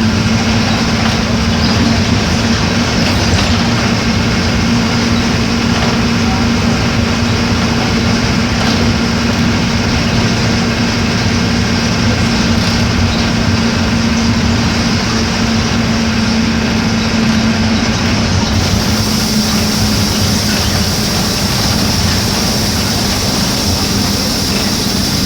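Mercedes-Benz OF-1418 bus's diesel engine running steadily, a continuous drone with a steady whine over it. About three-quarters of the way through, a high hiss joins in and the whine drops slightly in pitch.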